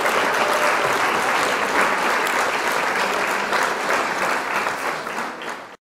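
Audience applauding, thinning out near the end and cutting off abruptly.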